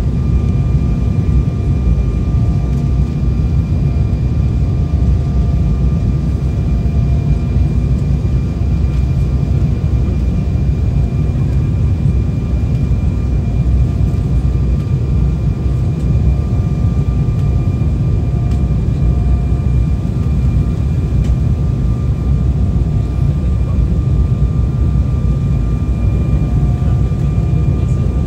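Cabin noise aboard an Embraer 190 rolling out after landing: a steady low rumble with a thin, even whine from its GE CF34-10E turbofan engines, heard from inside the cabin.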